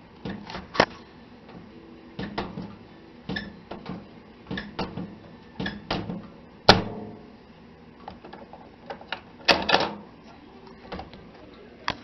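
A series of sharp clicks and knocks from a Panasonic microwave oven's door latch and interlock micro-switches as the door is worked, testing the newly replaced main safety switch. The two loudest knocks come a little past the middle and about three-quarters of the way through.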